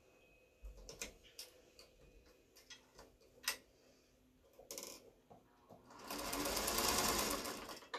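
Small black vintage sewing machine stitching in one fast run of about two seconds near the end, sewing through cork fabric. Before it come a few light scattered clicks from handling the work.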